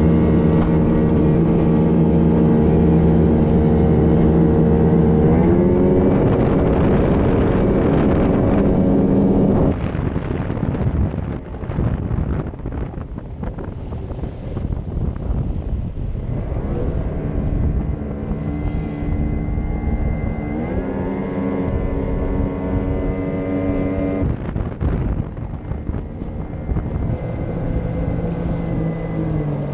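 Boat motor running under way, its pitch climbing as it is throttled up about five seconds in and again about twenty seconds in. From about ten seconds in it is quieter under a rushing noise of wind and water, and its pitch falls at the very end.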